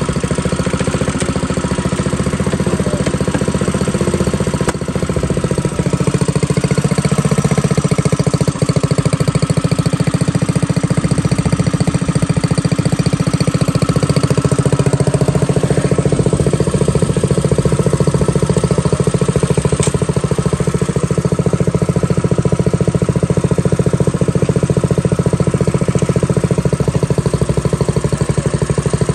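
Coleman minibike's small single-cylinder engine running steadily, its speed wavering slightly in the first half and then holding even.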